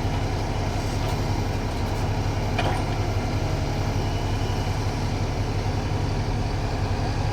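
Kobelco 220 hydraulic excavator's diesel engine running steadily under load with a low drone as it works its boom and bucket, with one short metallic knock about two and a half seconds in.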